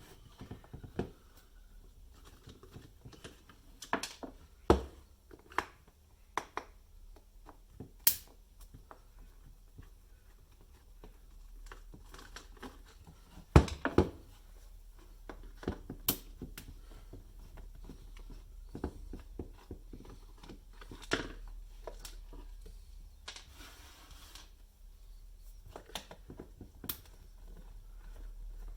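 Irregular clicks and knocks of hands and a tool working on the plastic housing of a 12 V car polisher as it is taken apart, with a short scrape about two-thirds of the way through.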